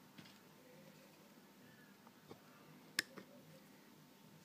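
Near silence broken by one sharp click about three seconds in, with a few faint ticks around it: a piston wrist-pin circlip snapping into its groove in a two-stroke jet ski piston.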